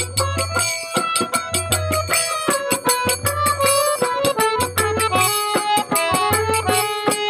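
Instrumental interlude of a Bengali folk song: a harmonium plays a held, wavering melody over a drum beat that comes about every one and a half seconds, with quick clicking accents throughout.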